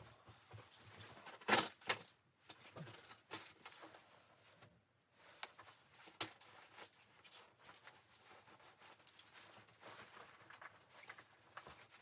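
Faint, scattered clicks, knocks and rustles of things being handled, with a louder knock about a second and a half in and a sharp click about six seconds in.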